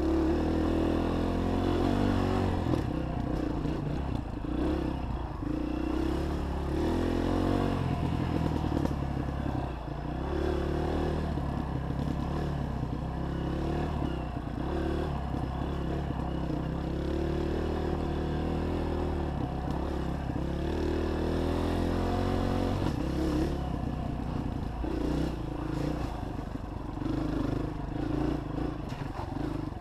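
Honda 230 single-cylinder four-stroke dirt bike engine running under way, its pitch rising and falling as the throttle is worked and the gears change, with rattling from the bike over rough trail.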